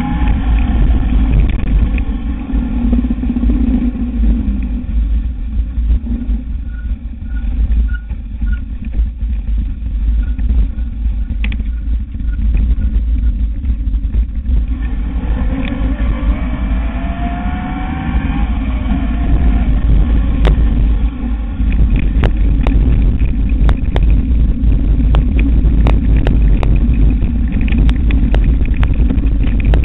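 Electric mountain bike riding a rough dirt trail, with a constant low rumble of wind and ride vibration. The e-bike's electric motor whines, rising in pitch as it speeds up about halfway through. Over the last third, repeated sharp rattles and knocks come from the bike going over bumps.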